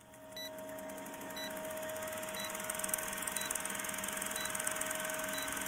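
Vintage film-leader countdown sound effect: a film projector running with a fast clatter over a steady hum, and a short high beep once a second as the numbers count down. It fades up over the first second.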